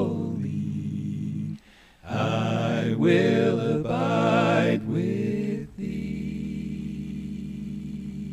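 A congregation singing a hymn unaccompanied, holding the closing notes, with a brief break about a second and a half in. The singing stops a little under six seconds in, leaving a steady low hum.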